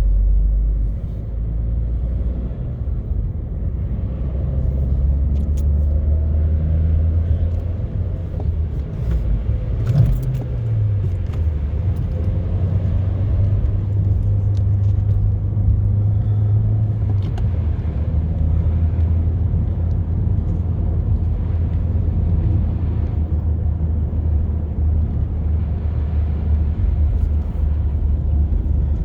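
A car being driven: a steady low engine and road drone that shifts in pitch a few times, with one sharp click about ten seconds in.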